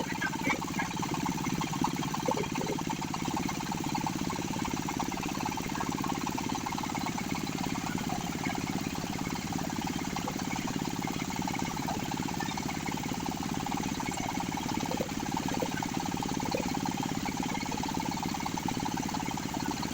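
A machine running steadily, with a few faint clicks.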